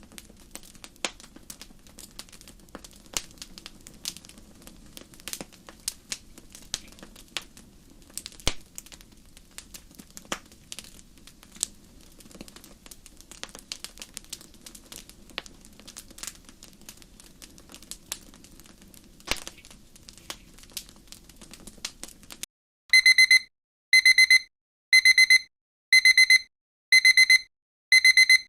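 A soft crackling background of scattered clicks and pops cuts off suddenly, then a digital timer alarm sounds: six loud bursts of rapid high-pitched beeps about a second apart, signalling the end of a Pomodoro interval.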